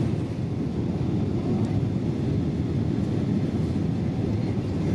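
Steady low rumble and rush of a Boeing 777-200ER's engines and airflow, heard from inside the passenger cabin.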